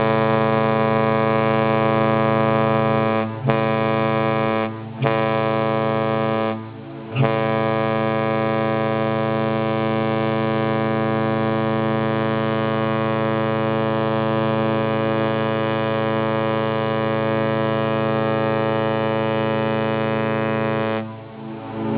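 Ship's horn sounding a departure salute: a few short blasts with brief breaks in the first seven seconds, then one long steady blast of about fourteen seconds that dies away near the end.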